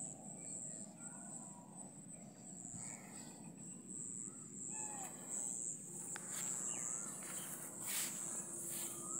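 Insects trilling steadily at a high pitch over a low outdoor hum, with a few short bird chirps in the second half.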